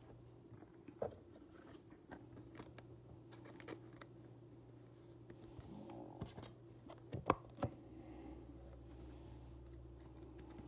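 Trading cards being handled, flipped through and set down on a tabletop: scattered soft clicks and taps, with a couple of sharper taps about seven seconds in, over a low steady hum.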